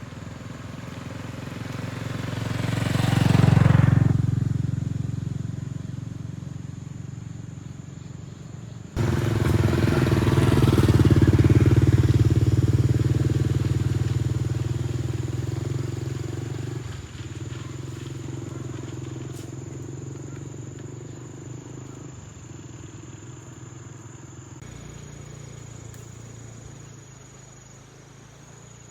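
Motorcycle engine passing by, growing louder and fading, then a motorcycle running steadily and slowly fading away.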